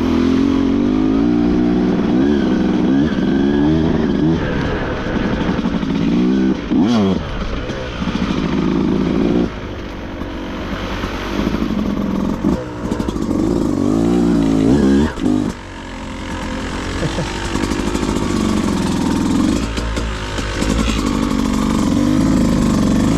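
Beta 200RR two-stroke dirt bike engine being ridden on the trail, revving up and falling back over and over as the throttle is worked, with a few short drops in power near the middle.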